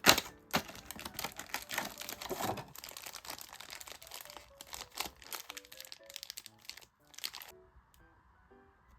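Plastic packaging crinkling and crackling as it is handled and opened, in quick irregular bursts with a sharp crackle right at the start. It stops about three quarters of the way through, leaving soft background music.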